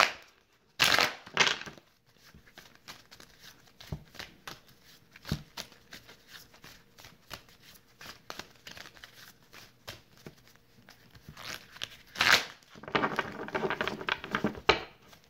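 A tarot deck being shuffled by hand, with a run of small card flicks and slaps and louder rustling bursts about a second in and again near the end.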